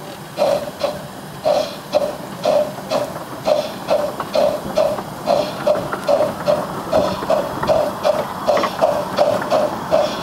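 Exhaust beats of a Bassett-Lowke Class 30 15-inch-gauge steam locomotive pulling away from a stand, heard from the footplate. The chuffs come evenly and quicken as the engine gathers speed, from about two a second to about three a second near the end.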